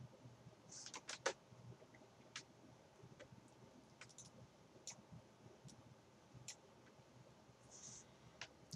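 Near silence: quiet room tone with about ten faint, sharp clicks scattered through it, a few bunched together about a second in.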